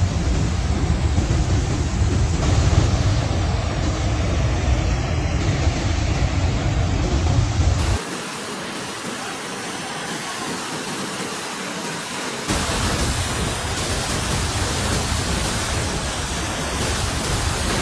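Muddy floodwater rushing in a fast torrent: a steady noise of water, deep for the first eight seconds, then thinner and quieter, and louder again about twelve seconds in.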